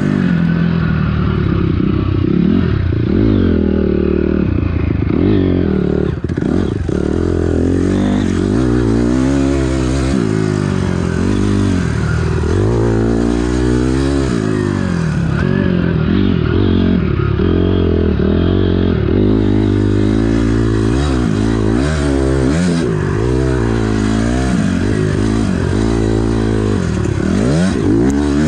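Honda CRF250R four-stroke single-cylinder dirt bike engine being ridden hard at racing pace, its pitch rising and falling again and again as the throttle is opened and chopped and the bike shifts through the gears.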